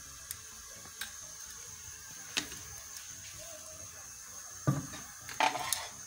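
Faint steady hiss with a thin high whine, broken by a few small clicks and then, near the end, two short louder knocks with a brief clatter.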